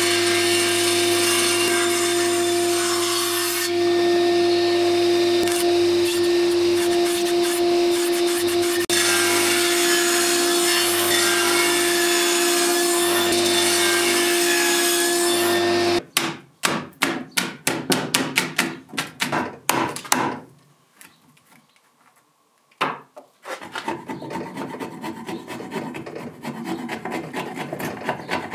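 Table saw running steadily while cutting a row of closely spaced kerfs in an oak timber; it stops about halfway through. A quick run of sharp knocks and snaps follows, then a short lull, then a chisel paring and scraping away the oak waste.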